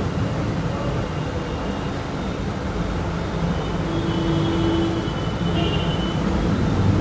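Steady background rumble of road traffic, with a brief higher tone about four seconds in.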